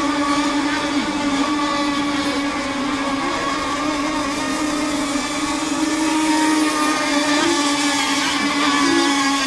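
Radio-controlled racing boats running at speed, their engines making a steady high-pitched whine that wavers slightly in pitch.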